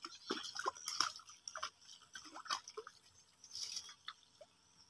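A hooked fish splashing at the water's surface as it is reeled in to the bank and lifted out: a string of short, irregular splashes and drips.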